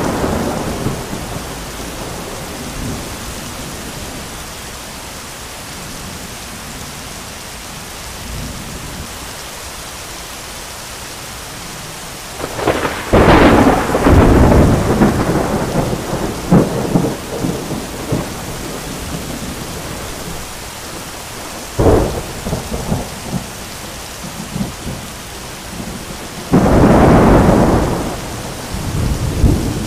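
Heavy rain pouring steadily through a thunderstorm. A thunderclap is fading at the start. About 13 seconds in comes a loud crack of thunder with a rumble that crackles on for several seconds, then a sharp crack near 22 seconds, and another loud rumble of thunder near the end.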